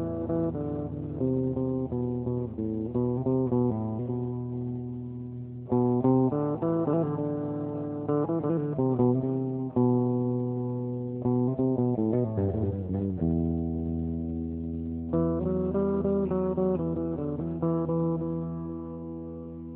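Instrumental guitar music: plucked notes played one after another over held low bass notes, with a fresh phrase starting sharply several times.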